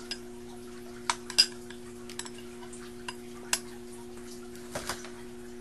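A metal spoon clinking against a glass cup of ice cream: about eight light, separate clinks, the loudest about a second and a half in. A steady low hum runs underneath.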